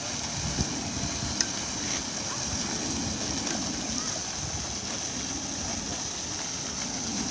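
Steady rush and splash of a pond fountain's spray, with faint voices, and two sharp clicks about half a second and a second and a half in.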